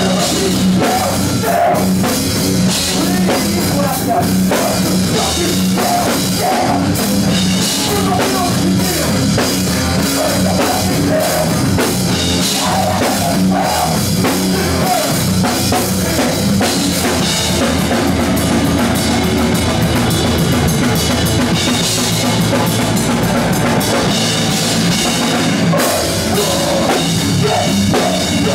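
Live rock band playing loudly, with the drum kit and bass drum prominent in a dense, continuous wall of sound.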